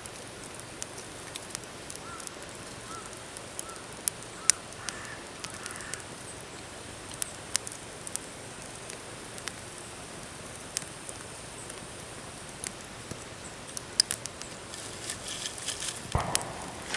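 Wood campfire crackling: scattered sharp pops and snaps over a steady faint outdoor hiss. A louder rustling, handling sound starts near the end.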